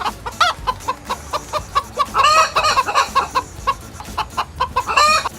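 Chicken clucking: a quick run of short clucks, about three or four a second, broken by a few louder, longer squawks, the biggest of them about two seconds in.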